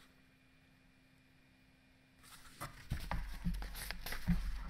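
Near silence for about two seconds, then light paper rustling and soft knocks as a picture book's pages are handled and turned close to the microphone.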